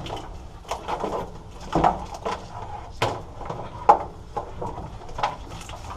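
Wiring harness being pulled through into the car's interior: irregular rustling, scraping and plastic knocks of the loom and connectors, with two sharper knocks about three and four seconds in.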